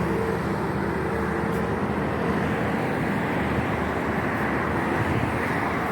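Steady road traffic noise, a dense mix of vehicle engines and tyres running with no bangs or bursts.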